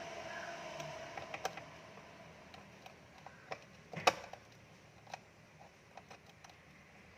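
Scattered light clicks and taps, with one sharper click about four seconds in, over a faint steady hum during the first second or so.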